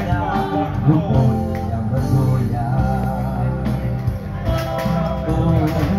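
A man singing into a handheld microphone over amplified backing music, his voice holding and bending long notes.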